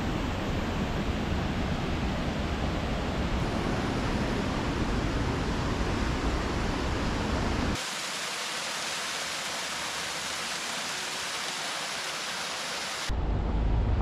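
Water rushing over a mill dam spillway in a full, steady rush with plenty of low end. About eight seconds in, it cuts suddenly to the thinner, lighter splash of a small cascading waterfall. Near the end, a second cut brings in a low rumble.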